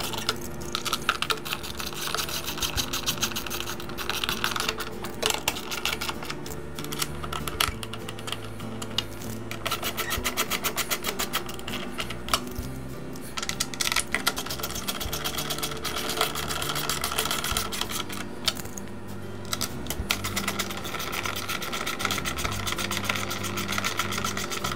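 Rapid clicking of a hand tool driving the screws that hold a lawn mower engine's blower cover, over background music.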